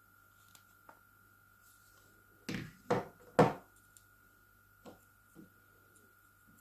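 Three hard knocks in quick succession about two and a half seconds in, with a few lighter clicks before and after: plastic and metal parts of a Kemei KM-2296 hair clipper being handled and set down while it is taken apart.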